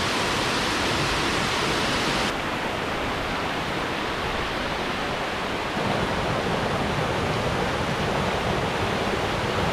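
Waterfall rushing: a steady noise of falling water, its tone changing abruptly about two seconds in and again about six seconds in.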